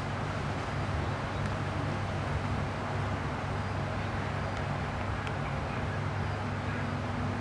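A steady low mechanical hum with a hiss over it, even throughout.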